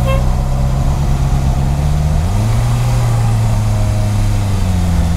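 Honda CB650R's inline-four engine idling and crawling in stop-and-go traffic. Its pitch steps up a little over two seconds in and settles back down near the end.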